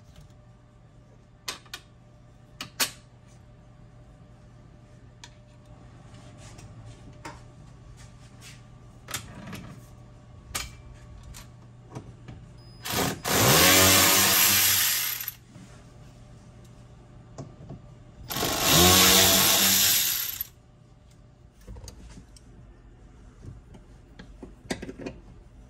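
Cordless drill-driver run in two bursts of about two seconds each, rising in pitch as it spins up, driving out the screws that hold a UTV cab headliner. Light clicks and taps of parts being handled come in between.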